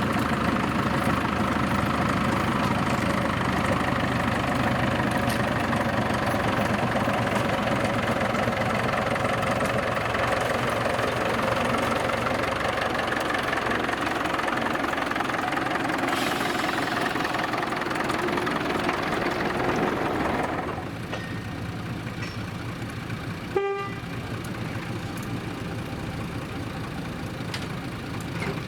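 A small narrow-gauge forest-railway diesel locomotive running with its engine droning steadily, together with the noise of the train on the rails. About 20 seconds in, the sound drops to a quieter steady running level. A few seconds later comes one very short toot of a horn.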